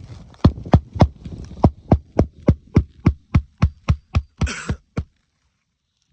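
Hammer driving a roofing nail through a new asphalt shingle into the roof deck: a fast, even run of sharp blows, about three to four a second, that stops about five seconds in.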